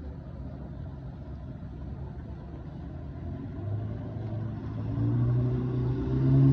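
An engine running with a low, steady hum, growing louder and rising slightly in pitch from about halfway in.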